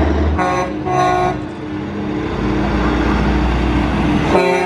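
Semi-truck air horns blowing: two short blasts about half a second and a second in, then another starting near the end, over the steady drone of passing diesel trucks.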